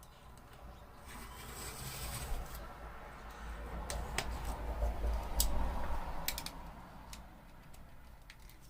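Cardboard of an old puzzle box being cut: a scraping rasp that swells about a second in and fades near the end, with a few sharp clicks in the middle.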